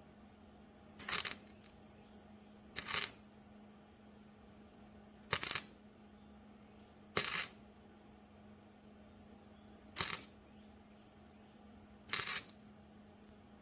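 Welder laying short tack welds on a thin, cracked steel door-handle bracket: six brief crackling bursts a couple of seconds apart. The voltage is turned all the way down because the metal is so thin.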